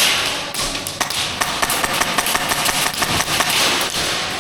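Airsoft gunfire during close-quarters play: a dense, irregular run of sharp clicks from rifles firing rapid bursts.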